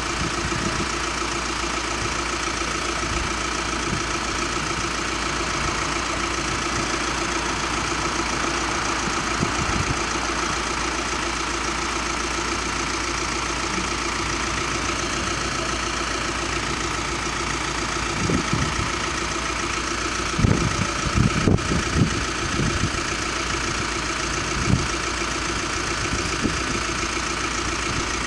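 Belgian level-crossing warning bells ringing without pause while the barriers are down, the signal that a train is approaching, over the idling engines of waiting cars. A few short low thumps come around twenty seconds in.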